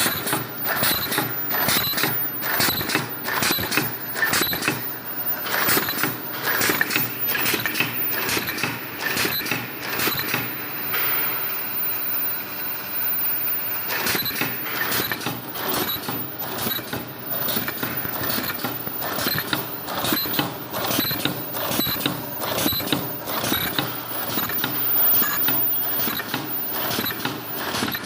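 Automatic mask ear-loop welding machine running: a rapid, continuous clatter of clicks and knocks from its feeding, ear-loop folding and welding mechanisms, thinning out for a few seconds near the middle.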